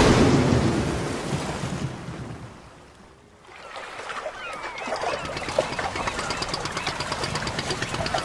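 Open-sea ambience: water moving and a fishing boat's engine running, rising in after a loud hissing sound fades away over the first three seconds. A few short high squeaks come near the middle.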